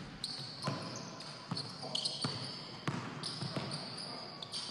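A basketball being dribbled on a hardwood gym floor, about five bounces at a steady pace. High-pitched sneaker squeaks come between them as the players shuffle and push in the post.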